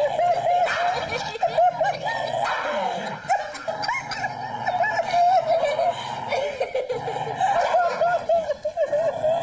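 Dog growling and snarling in a continuous, wavering grumble that rises and falls in pitch, typical of a dog guarding its bone, here against its own hind leg.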